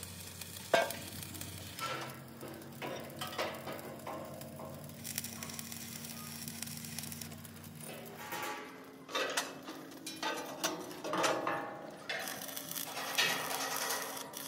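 Arc welding crackling and sizzling on a steel truck chassis frame, with scattered metal knocks, the sharpest about a second in.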